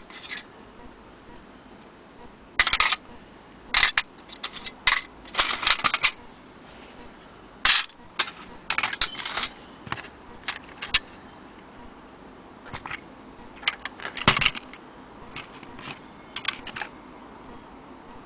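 Irregular metallic clicks and clinks in short clusters, as of the metal parts of an antique longcase clock movement being handled and shifted about.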